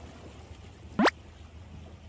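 Seawater lapping at the shore, with a low steady rumble underneath. About halfway through comes one short, sharp rising sweep, by far the loudest sound.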